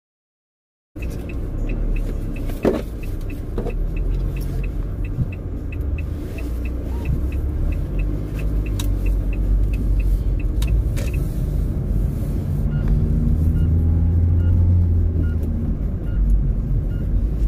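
Low engine and road rumble inside a van's cabin while driving, coming in after about a second of dead silence. A light, evenly spaced ticking runs through much of the first half, and slower ticks return near the end.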